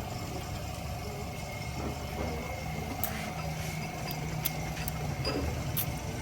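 A steady low engine-like hum, with a few sharp metallic clicks of tools being handled about three, four and a half and six seconds in.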